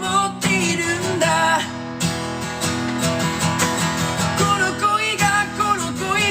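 Acoustic guitar strummed steadily, with a man's singing voice over it in places: a solo guitar-and-voice cover of a pop song.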